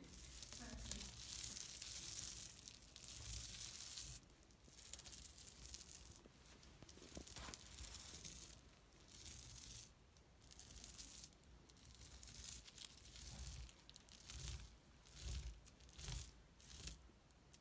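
Hands rubbing and pressing over paint-smeared plastic bubble wrap: a faint plastic rustling and crinkling that comes in uneven bursts.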